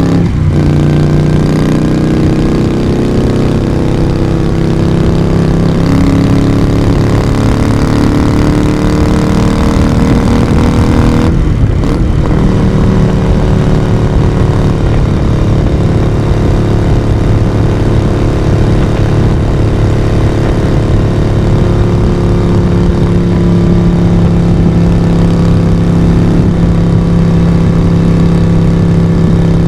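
Moto Guzzi V35's air-cooled 90-degree V-twin running under way, with its exhaust note steady for long stretches. The note breaks off briefly twice, near the start and about twelve seconds in, then carries on at a changed pitch, as at gear changes.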